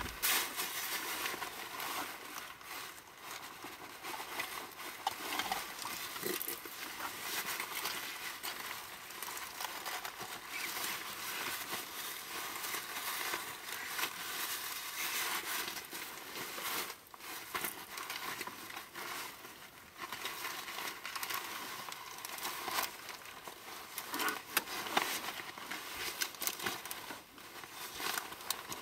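Hands rummaging through small items inside a car while searching for a memory card: continuous rustling and crinkling with scattered small clicks and knocks.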